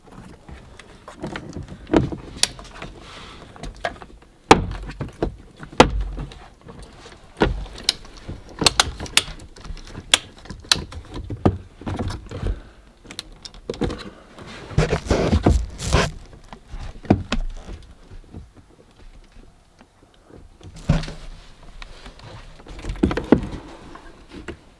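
Irregular clicks, taps and knocks of parts being handled and fitted inside a van, with a dense run of knocks in the middle.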